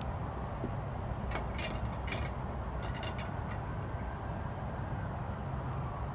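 About five light, glassy clinks between one and three seconds in, like small hard objects tapping together, over a steady low rumble.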